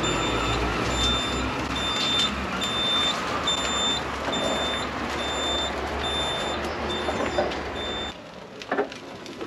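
Electric mobility scooter driving with its warning beeper sounding, a high beep repeating a little faster than once a second over the rumble of the scooter running on paving. The beeping stops about eight seconds in.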